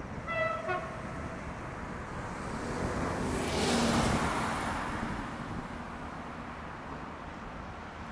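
Two short toots of a tram-train's horn, followed by the rush of a passing vehicle that swells to a peak about four seconds in and then fades.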